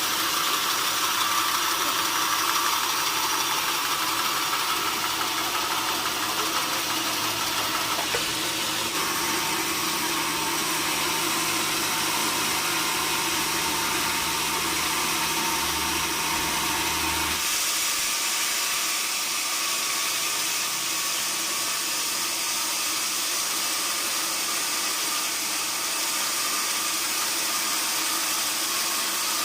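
Sawmill machinery running steadily with a constant mechanical noise and hiss. About two thirds of the way through, the low hum drops out and a brighter, higher hiss takes over.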